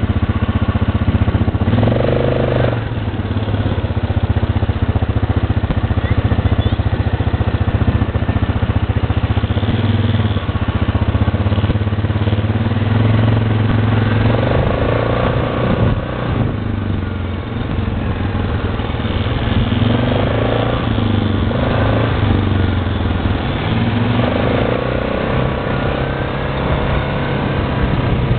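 Quad bike (ATV) engine running under way, heard from on board, its pitch rising and falling several times with the throttle.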